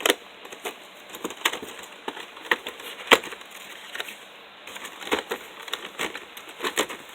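Headphone packaging being wrestled open by hand: irregular sharp crackles and clicks, the loudest about three seconds in.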